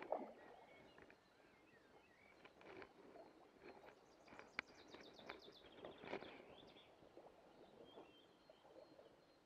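Near silence: faint rustling and scattered clicks, with a short fast run of high ticks falling in pitch about four seconds in.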